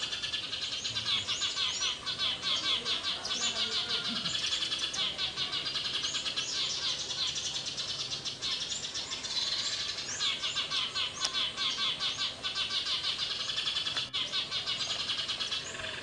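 Many small birds chirping and twittering in a dense, unbroken chatter of quick high notes.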